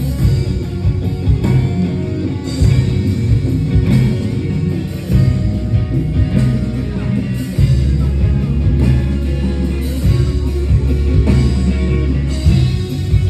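Guitar-led rock music played live on stage during a sound check, with a heavy bass line under it.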